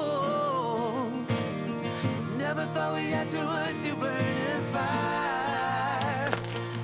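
Background music: a song with a singing voice over acoustic guitar and bass, in a country style.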